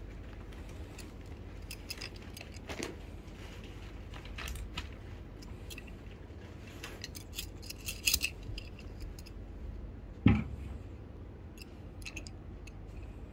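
Scattered small clicks and metallic clinks from handling the parts of an aluminium video tripod and its fluid head, with one louder knock about ten seconds in.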